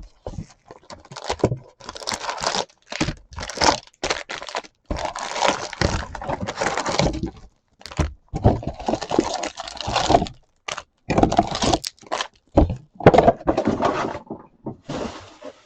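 A sports-card hobby box being unwrapped and opened by hand: packaging tearing and crinkling in irregular bursts, mixed with sharp clicks and cardboard knocks.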